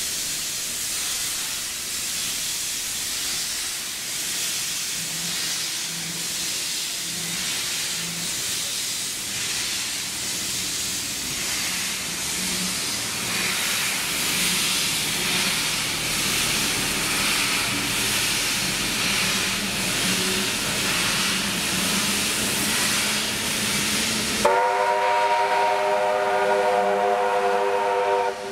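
Steam hiss and running noise as the carriages of a departing train hauled by the NSW C38-class Pacific steam locomotive 3801 roll past. Near the end a loud whistle chord of several tones starts suddenly and is held for about four seconds.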